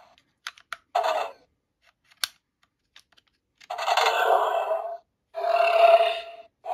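Electronic sound effects from a Power Rangers Dino Fury Morpher toy's small speaker, set off by a metal tip pressed against the contact pins inside its key slot. A few sharp clicks and a short burst come about a second in, then two longer sound bursts near the end, which the tester takes for the T-Rex key's sound.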